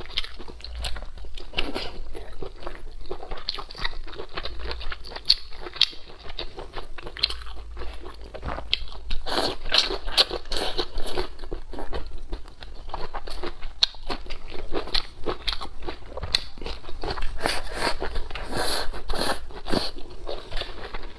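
Close-miked eating: wet chewing and crunchy bites of braised pig intestines and green peppers, a dense, continuous run of small clicks and smacks. The bites come thicker around the middle and again near the end.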